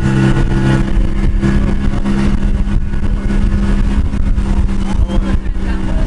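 Engine of a small open tour boat running steadily while under way, with wind and water rushing past.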